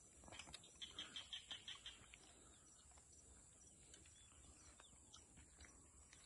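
Faint outdoor quiet with a bird calling a quick run of about eight short high notes about a second in.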